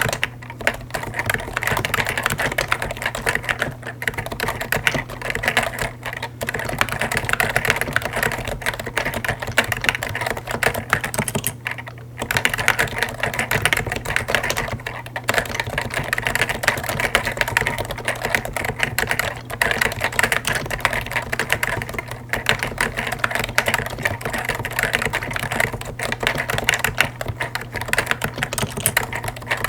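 Fast continuous typing on a Topre Realforce Hi-pro keyboard: its stock 45 g Topre electro-capacitive switches and Hi-pro keycaps give dense, irregular keystrokes, with short pauses about twelve and fifteen seconds in.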